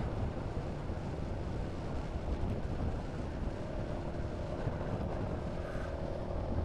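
Wind rushing over the microphone with the steady running of a Honda Forza 350 scooter's single-cylinder engine at cruising speed. A faint steady engine hum comes through from about halfway.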